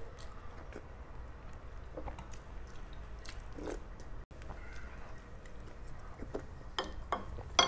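Close-miked chewing of a spoonful of mung bean stew, with wet mouth sounds and scattered small clicks, a sharper click near the end.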